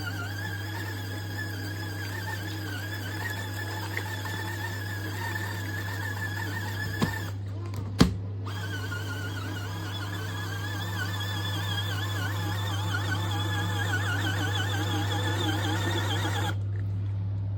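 Small electric motor of a compact portable washing machine running: a steady low mains hum under a higher whine that wavers in pitch. A sharp click sounds about eight seconds in.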